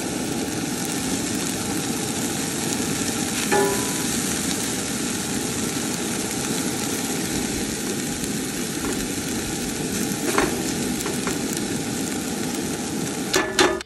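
Rice frying and sizzling in a cast iron skillet, a steady hiss, with a few short scrapes of a metal spatula against the pan as it is stirred.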